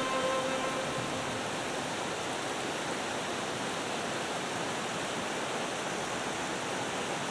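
Heavy rain falling, a steady even hiss, with the last notes of music fading out just at the start.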